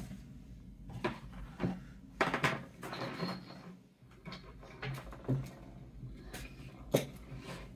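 Cardboard boxes being shifted around on a table: a scatter of soft knocks and brief rustling scrapes.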